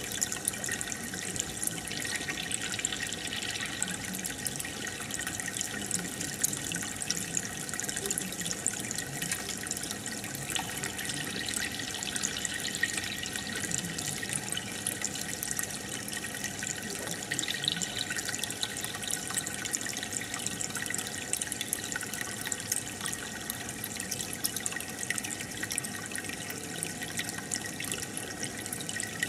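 Aquarium filter bubbling steadily: a constant watery trickle with a fine crackle of small bursting bubbles.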